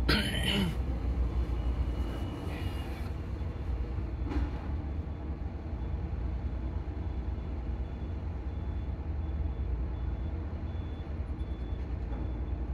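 Heavy engines running during ferry cargo handling, a steady low rumble. A short falling squeal comes right at the start, and brief clatters come about two and a half and four seconds in.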